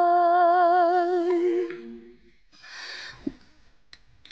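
A woman's sung note, held with vibrato at the end of a song, fading out over about two seconds. Then a brief rustle, a soft thump as a leather case is set down on a desk, and a small click near the end.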